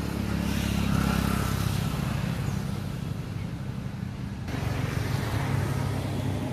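A motor engine running steadily with a low hum. Its sound shifts abruptly about four and a half seconds in.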